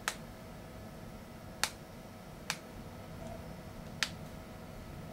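Four sharp clicks at uneven intervals, over a faint steady hum.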